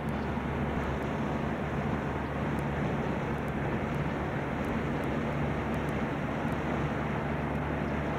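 Steady road and engine noise of a car in motion, heard from inside the cabin, with a constant low hum underneath.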